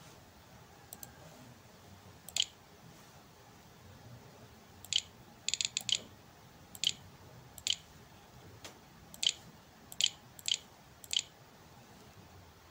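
Computer mouse button clicking about a dozen times at uneven intervals, with a quick run of clicks about halfway through: each click presses a key on the on-screen keyboard to type a search term.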